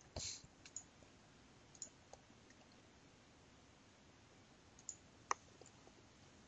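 Near silence broken by a few faint sharp clicks, the loudest about five seconds in, with a brief soft hiss at the very start.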